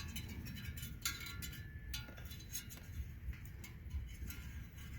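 Light, irregular metallic clicks and clinks of a stainless steel locking zip tie being threaded into its head and handled against a metal part, with a sharper click about a second in.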